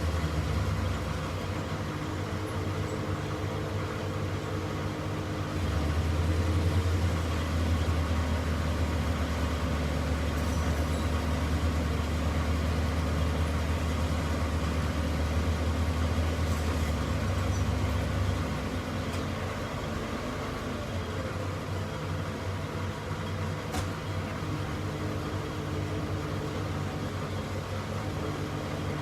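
Heavy diesel engine running steadily, growing louder about six seconds in and easing back down at about eighteen seconds.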